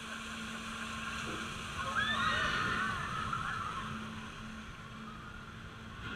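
Drop-tower ride seat climbing the tower, with a steady low hum and a hiss of wind and park background. About two seconds in a brief, high, wavering cry rises above it for about a second.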